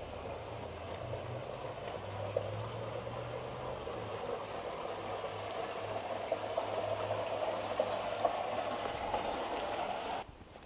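Steady rush of flowing water, with a faint low hum underneath, growing slowly louder and then cutting off abruptly near the end.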